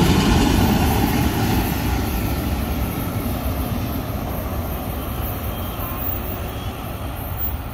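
Freight train of autorack cars rolling along the rails; the rolling noise fades steadily as the end of the train moves away.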